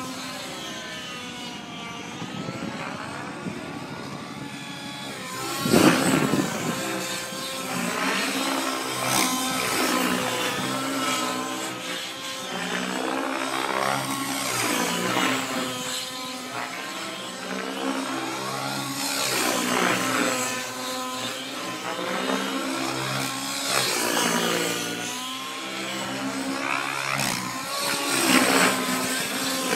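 Align T-REX 700N RC helicopter's YS 120SR two-stroke nitro engine with a Hatori tuned pipe, running hard through aerobatic flight. Its pitch sweeps up and down over and over as the helicopter passes and loads the rotor, loudest about six seconds in and again near the end.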